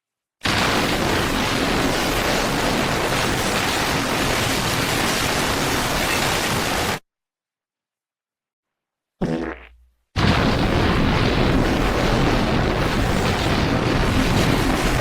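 Exaggerated comic fart sound: a long, loud blast of noise with a deep rumble that lasts about six and a half seconds and cuts off sharply. After a two-second gap comes a short falling pitched fart, then another long, loud, rumbling blast.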